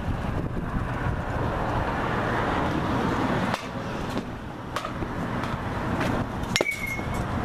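A baseball bat hits a pitched ball about six and a half seconds in, a sharp crack followed by a short ringing ping; a couple of lighter knocks come a few seconds before it. Steady wind and traffic noise runs underneath.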